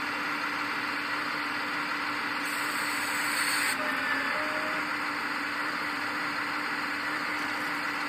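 Hydraulic pump of a 1/14-scale RC Volvo excavator running steadily as the boom and bucket move: a constant tone with a hiss over it.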